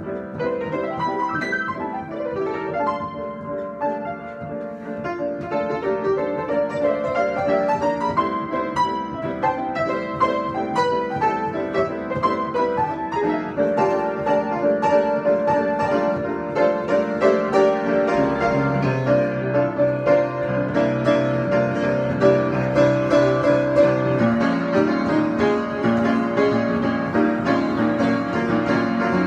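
Improvised piano playing: a moving melody over held chords, with a lower bass line joining about two-thirds of the way through.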